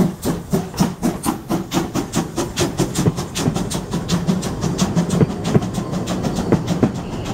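Narrow-gauge steam locomotive 99 1786-5 pulling a train past, its exhaust chuffing in an even beat of about three a second. The beat then gives way to the passing coaches' wheels clicking and rumbling over the rail joints.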